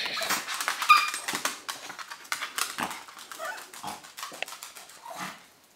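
A small chihuahua-type dog giving a rapid string of high yapping barks mixed with short whines, loudest about a second in and dying away just before the end.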